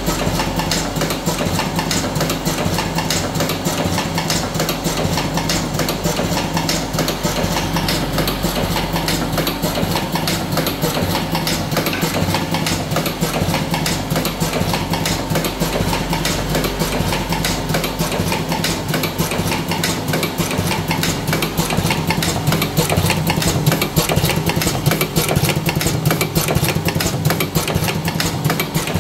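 Buffalo V4S electric cigarette tube-filling machine running continuously: a steady motor hum under a fast, even clatter from its filling mechanism.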